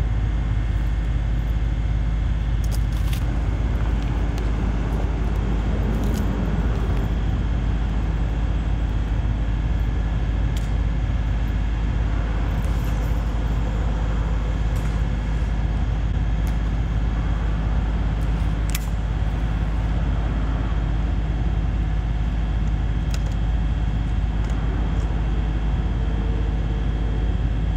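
Steady, even rumble of road traffic on the bridge overhead, with a few faint clicks now and then.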